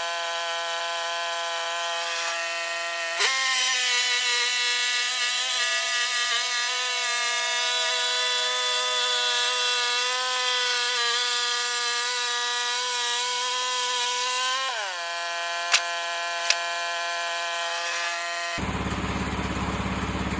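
Sawmill running while cutting a white oak log: the steady drone drops in pitch about three seconds in and holds lower while the blade is in the wood, then rises back to its free-running pitch at about fifteen seconds. Two sharp clicks follow, and near the end the sound changes abruptly to a low engine rumble.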